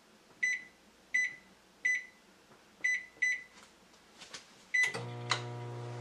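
Microwave oven keypad beeping six times as it is set, then the oven starting up with a steady low hum about five seconds in.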